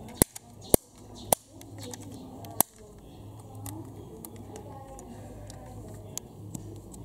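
Doors of a die-cast model Mercedes-Maybach sedan being snapped shut by hand: four sharp clicks within the first three seconds, then a few faint ticks as the model is handled.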